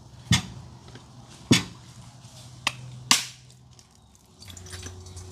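Four sharp knocks of pots and utensils being handled, the last two close together.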